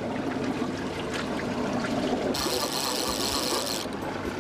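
Boat engine running steadily at slow trolling speed, with water washing along the hull. About halfway through, a burst of hiss lasts about a second and a half.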